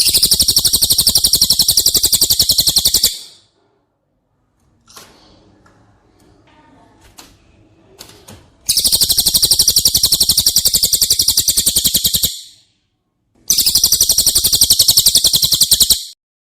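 Songbird trills for a masteran recording: three long bursts of very rapid, high-pitched repeated notes, each lasting about three seconds, with fainter scattered chirps and clicks in the gap between the first and second bursts.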